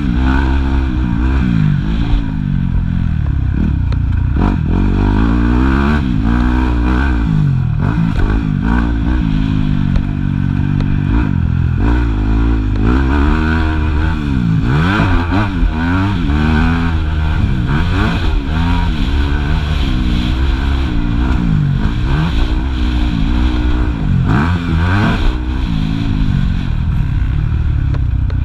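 Yamaha YZ250F four-stroke single-cylinder motocross engine heard from on board, revving up and dropping back over and over as the rider opens and closes the throttle and shifts through the gears around the track.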